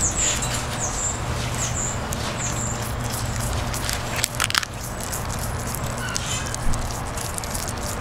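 Green iguana biting and tearing a collard green leaf, a short burst of crackly crunching about halfway through. Steady background noise runs under it, with a series of short high chirps near the start.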